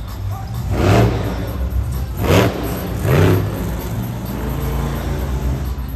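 Monster truck engine revving hard in three bursts about a second apart, then running steadily, with music underneath.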